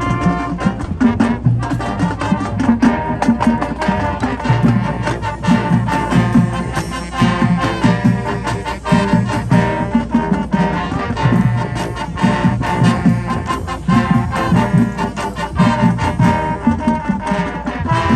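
Marching band playing: a full brass section sounds sustained chords over a driving, steady drum-line beat.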